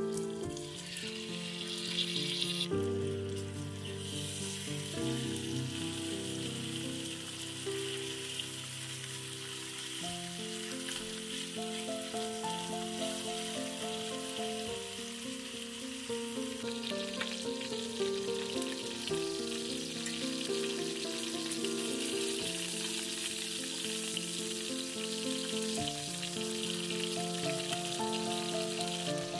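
Food sizzling as it fries in hot oil in a pan, a steady hiss that grows louder about seventeen seconds in, under background music.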